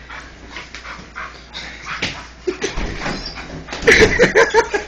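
English bull terrier whimpering and panting during rough play, with a quick run of short high whines about four seconds in.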